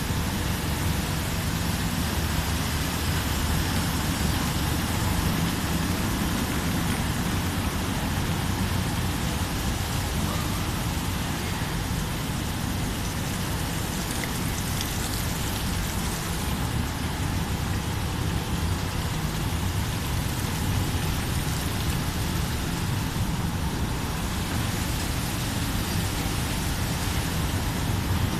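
Industrial rope washing machine for printed fabric running steadily: a constant machine hum with water splashing and hissing.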